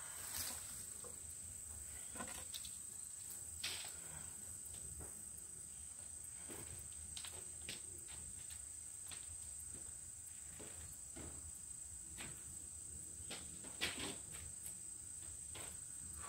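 Insects singing in a steady high-pitched drone, with scattered rustles and a few short knocks from junk being handled, the loudest knock near the end.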